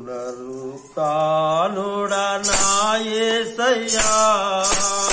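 A man's voice singing the slow, long-held opening notes of a Telugu Christian hymn. A tambourine starts jingling about halfway through.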